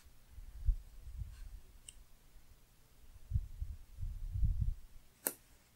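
Dull low thumps and rubbing of hands pressing a paper sticker down onto a planner page lying on a desk, in two spells, with one sharp click near the end.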